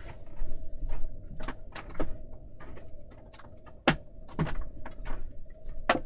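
A person moving about and handling objects: scattered knocks and clicks, irregular, over a faint steady hum.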